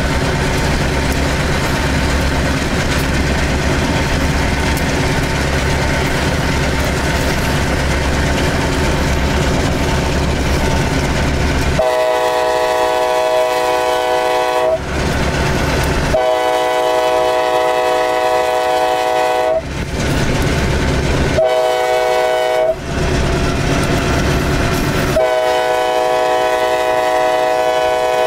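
Diesel locomotive hauling a loaded sugar cane train, its engine running with a steady low drone. About halfway through, its horn sounds the grade-crossing signal: two long blasts, a short one, then a long one.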